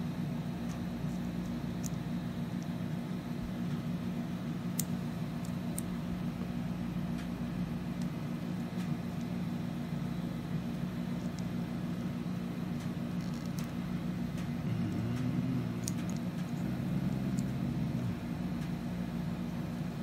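Steady low hum of room background noise, with a few faint clicks of small clear plastic keycap parts being pulled apart and fitted together by hand.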